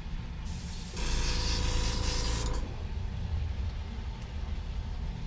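Iwata airbrush spraying paint onto a lure. A burst of air hiss starts about half a second in, grows louder about a second in, and cuts off just before three seconds. A steady low hum runs underneath.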